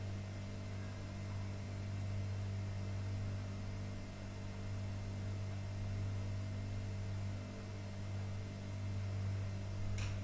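Steady low electrical hum with a faint hiss, and one short click near the end.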